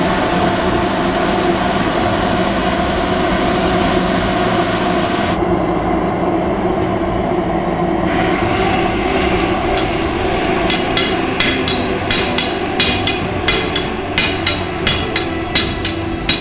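Gas forge burner roaring steadily with a low hum. From about ten seconds in, a hand hammer strikes a hot steel sword blade on an anvil block, soon at about two to three blows a second.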